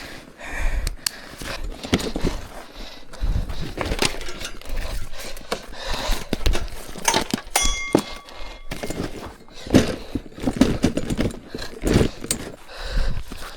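Fishing gear being hastily gathered and packed: a string of knocks, clatters and handling noises, with one metallic clink that rings briefly about eight seconds in.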